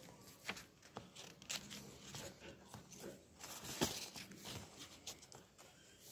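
Paper rustling and crinkling as a hand handles a folded paper pitcher-plant model, a run of irregular soft crackles with a sharper snap about four seconds in.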